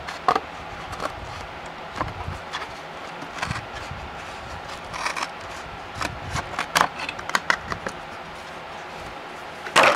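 Scissors cutting through a Funko Pop cardboard box, irregular snips and crackles as the cardboard is cut and handled.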